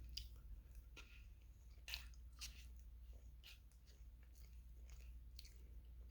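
Faint close-miked chewing and wet mouth clicks from someone eating non-dairy ice cream with fudge chips and cookie pieces. There are short sharp clicks roughly once a second, over a low steady hum.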